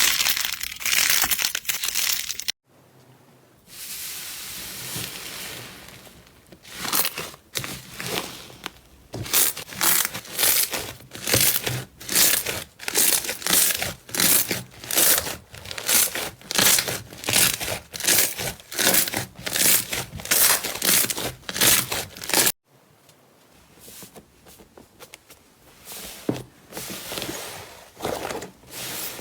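Hands squeezing and pressing slime, giving crackling, crinkly, crunchy noises in a regular rhythm of about two presses a second. The sound breaks off abruptly twice as one slime clip gives way to another.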